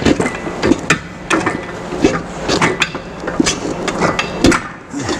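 Michelin Road 5 sport-bike tire being pushed by hand over the rim of a 17-inch motorcycle wheel on a tire changer, making a string of irregular knocks and thumps, several a second, as the first bead is worked on.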